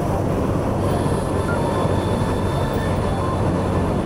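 Suzuki GN125H's single-cylinder engine running steadily at cruising speed, under a heavy rush of wind and road noise.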